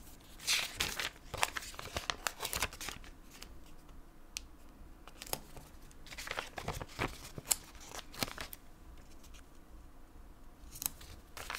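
Paper planner stickers being peeled off a sticker sheet and pressed onto notebook pages, with a page of the notebook turned: irregular paper rustles, crinkles and light taps, coming in clusters in the first few seconds, again around six to eight seconds in, and near the end.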